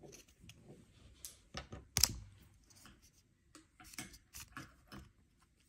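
Small, scattered clicks and scrapes of plastic and metal parts as the opened Oral-B iO electric toothbrush handle's internals are pried at by hand to work the battery loose, with the sharpest click about two seconds in.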